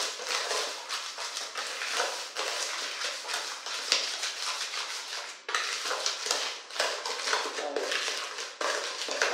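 A spoon stirring egg and sugar in a plastic basin: fast, irregular scraping and clicking of the spoon against the bowl, with a short break about five and a half seconds in.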